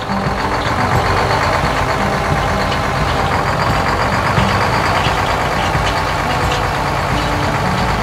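Combine harvester engine and machinery sound effect, a steady loud drone with a low rumble, as the harvester drives through and cuts the wheat.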